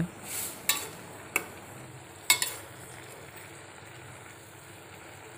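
Macaroni at a rolling boil in a stainless steel pot, a steady bubbling hiss, while a metal spatula stirs it and clinks against the pot about four times in the first half.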